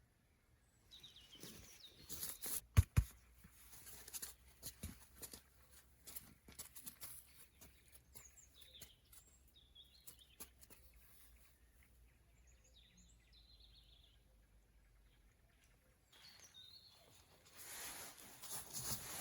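Small birds chirping here and there, with rustling and a sharp click or knock about three seconds in. A rustling noise builds near the end.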